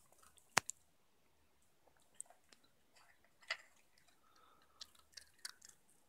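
Yorkshire terrier working a plastic treat-puzzle board: scattered sharp clicks and knocks from the moving plastic pieces, mixed with the dog crunching treats. The loudest click comes about half a second in.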